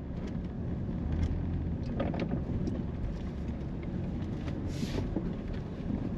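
A car driving slowly, heard from inside the cabin: a steady low engine and road rumble with a few light clicks, and a short hiss about five seconds in.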